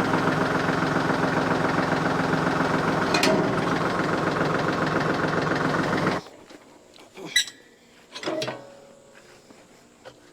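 Tractor engine running steadily as the tractor pulls forward to let a broken, half-detached post hole digger settle to the ground. The engine sound stops abruptly about six seconds in, followed by a couple of sharp knocks.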